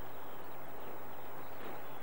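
Many short bird chirps over a steady background noise across open fields.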